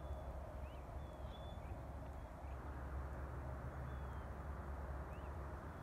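Steady low rumble of open-air ambience with a few birds chirping faintly over it: short chirps and thin whistles scattered through.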